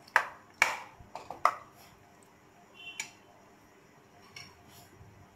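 A spoon knocking and scraping against a metal pan while stirring chicken into a thick masala: about four sharp clinks in the first second and a half, one more about three seconds in, and a few faint taps near the end.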